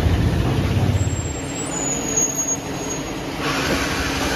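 TVS Apache RTR 200 4V's single-cylinder engine running at low revs as the motorcycle rolls away into the workshop, dying away about a second in. Near the end a steady hiss of workshop machinery takes over.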